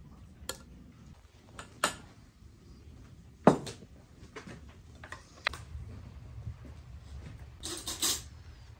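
Dishes being set down on a table: scattered clinks and knocks of plates, bowls and glasses, the loudest a sharp knock about three and a half seconds in, with a short clatter near the end.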